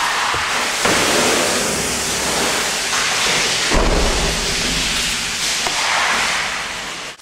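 Steady rushing noise, with a heavier low rumble for about half a second in the middle.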